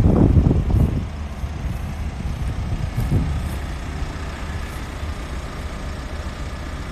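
Pickup truck engine idling, a steady low rumble, with louder rough surges in the first second and again briefly about three seconds in.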